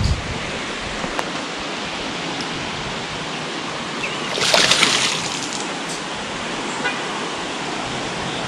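Steady rush of water flowing below a dam, with a brief louder burst of noise about halfway through.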